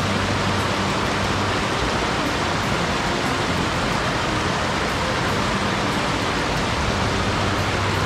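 Mountain stream water rushing, a steady, even noise that does not change.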